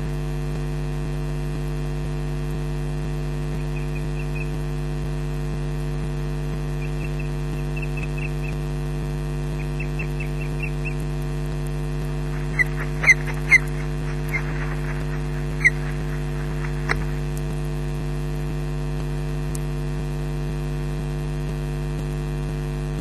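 Steady electrical mains hum in a nest-camera audio feed. About halfway through come about five short, sharp, high calls, which are plausibly an osprey's whistled calls. Fainter runs of quick ticking chirps come earlier.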